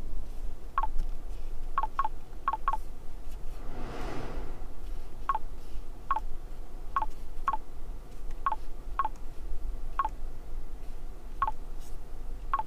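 Short electronic touch-feedback beeps from an ORA Ballet Cat's dashboard touchscreen, one for each tap, about fourteen of them at uneven intervals, some in quick pairs, over a low steady hum. A soft whoosh lasting about a second comes about four seconds in.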